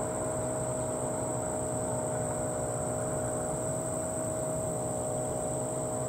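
Insects trilling: a continuous, even, high-pitched drone, with a steady lower hum underneath.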